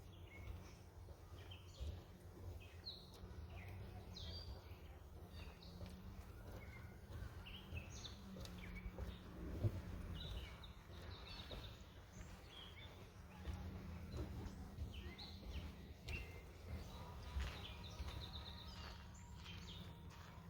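Several songbirds chirping and calling in short, scattered notes over a low rumble. A single sharp click about ten seconds in is the loudest sound, and near the end a bird gives a fast series of chirps.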